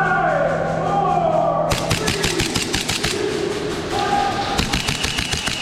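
Airsoft guns firing on full auto: rapid strings of sharp clicks that start about two seconds in and run on for several seconds. Before them, a drawn-out call gliding down in pitch sounds over a steady low hum.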